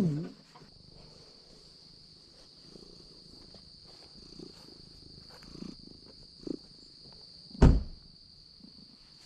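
Crickets or other insects chirring in one steady, high-pitched drone, with a few soft rustles and a single loud thump about three quarters of the way through.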